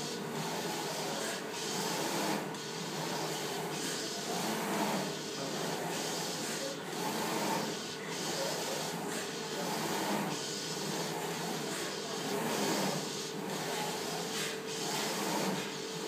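Flatbed inkjet printer printing on a wood board: the print-head carriage sweeps back and forth with a repeating whirr, reversing about every 1.3 seconds, over a steady hum.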